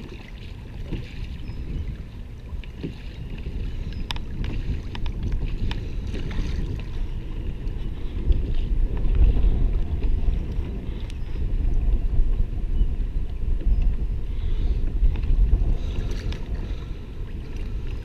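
Wind buffeting the camera microphone: a steady low rumble that grows louder about halfway through, with a few light clicks scattered through it.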